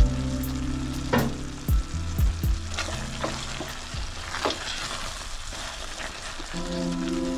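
A wooden spoon stirring a thick tripe stew in a stainless steel pot, knocking and scraping against the pot several times over a steady sizzle from the cooking pot.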